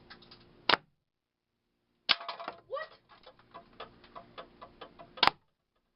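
Airsoft gun shots with BBs striking a cardboard target: three loud sharp cracks, about a second in, two seconds in and near the end, with a run of lighter clicks and ticks between the last two.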